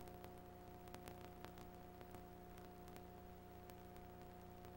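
Near silence: a faint steady hum over low hiss, with scattered faint clicks.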